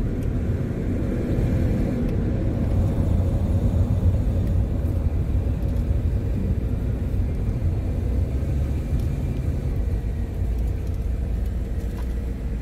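Road noise of a moving car heard from inside the cabin: a steady low rumble of engine and tyres.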